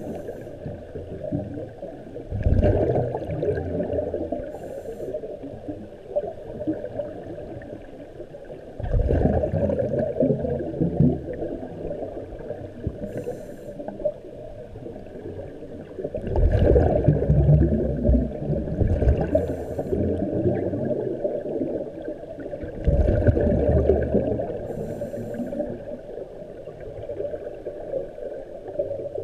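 A swimmer's breathing heard underwater through a camera housing: a loud, muffled rush of breath about every six to seven seconds, with short, higher hissing sounds in between, over a steady dull underwater wash.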